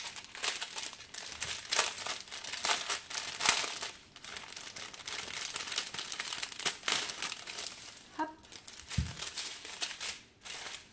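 Thin plastic bags crinkling as they are handled and unfolded: a strip of small plastic pouches of diamond-painting rhinestones. The crackling is dense and irregular, with a short lull about four seconds in and another near the end.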